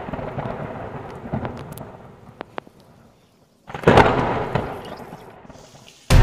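A loud boom about four seconds in that rumbles away over about two seconds, after the dying rumble of an earlier boom. Music starts at the very end.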